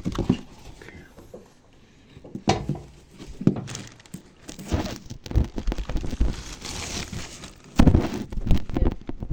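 Irregular rustling and crinkling broken by loud knocks and thumps, the loudest about a second before the end.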